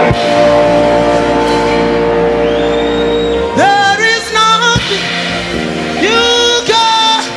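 Live gospel music: a chord held over a low bass note for about three and a half seconds, then a voice sliding up into wordless sung notes several times in the second half.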